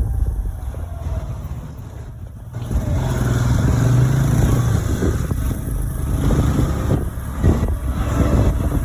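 A motor scooter riding along a road: the engine hums under heavy wind rumble on the microphone, with road traffic around. The sound dips briefly about two seconds in, then the engine hum comes up stronger.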